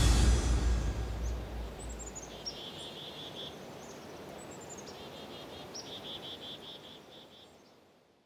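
A low note left over from the music dies away over the first two seconds or so. Faint bird chirping follows: two short trills of quick repeated notes, with thinner, higher notes around them. It fades out near the end.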